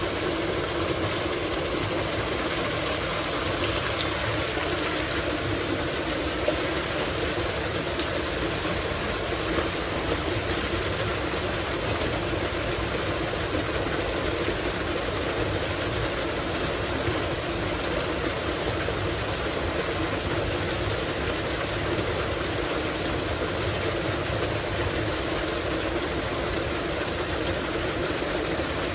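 A tubewell running: water gushing steadily from its outlet pipe into a concrete tank, over the steady hum of the pump.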